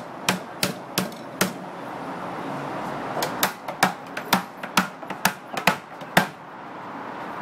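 Cooper's hammer striking a hoop driver to drive the metal hoops down a whisky barrel, tightening the staves. The strokes are sharp and even, about three a second, with a short run, a pause of about a second and a half, then a longer run of about nine blows.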